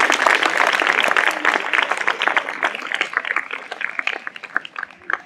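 Audience applauding, many hands clapping at once, loud at first and dying away over the last couple of seconds.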